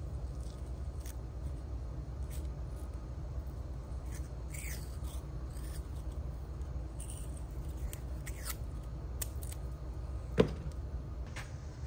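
Masking tape being unrolled and wrapped around a steel bolt's threads: scattered crinkly ticks and short tearing rasps. One sharp knock about ten seconds in stands out as the loudest sound.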